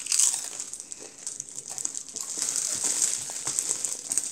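A Doritos tortilla chip being bitten and chewed, with irregular crunching and crackling.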